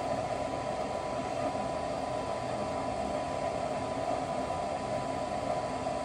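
Goodman 90% gas furnace running during its ignition sequence: the inducer draft motor gives a steady rushing hum with a thin, constant whine, the pressure switch closed and the igniter on.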